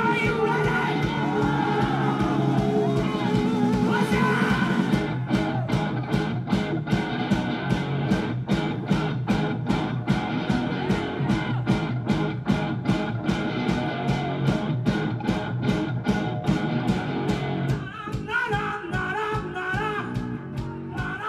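Live rock band playing electric guitar, bass and drums with a steady beat, with a singing voice. About three seconds before the end the full band drops out, leaving a voice over quieter backing.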